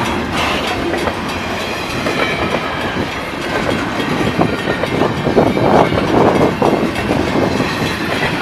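Double-stack container freight cars rolling past close by: a steady rumble of steel wheels on rail with rapid clicking and clanking from the wheels and couplers, loudest a little past the middle.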